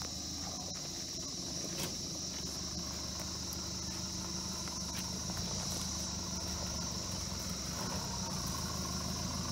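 LDV T60 ute's engine running low and slow as it crawls down a rocky track towards the microphone, getting a little louder near the end. A steady, high insect drone sits over it and is the loudest sound.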